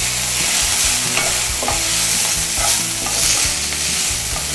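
Green peas, chopped green chillies and ginger-garlic paste sizzling steadily in hot oil while a wooden spatula stirs them around the frying pan, scraping the pan's base.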